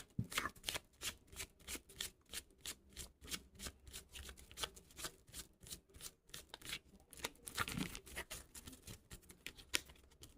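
A deck of reading cards being shuffled by hand: a run of quick, irregular card flicks and riffles, a few per second.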